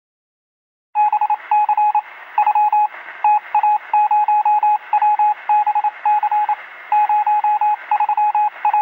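A beep tone keyed on and off in short and longer pulses, like Morse code, over steady radio static with a thin, tinny sound. It starts about a second in.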